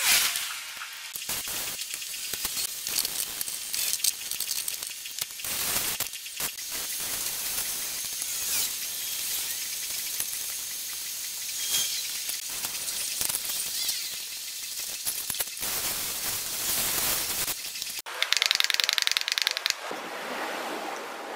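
Water and soapy foam spraying and splashing onto a car's wheel and bodywork during a wash, an even spray noise broken by scattered knocks. Near the end the spray turns louder and higher for about two seconds, then drops away.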